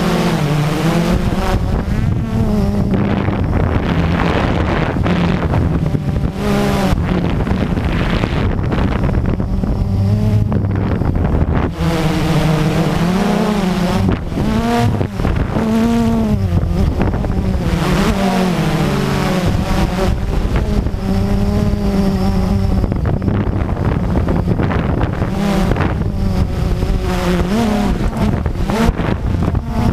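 Quadcopter drone's electric motors and propellers whining close to the onboard camera, the pitch rising and falling over and over as the motors speed up and slow down to steer and hold the drone.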